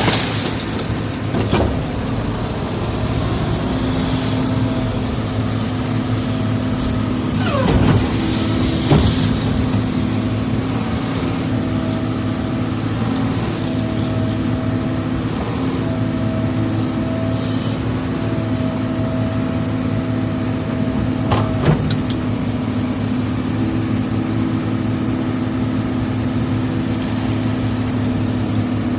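Excavator's diesel engine running steadily under load, with a few knocks and a brief sliding pitch about a quarter of the way in.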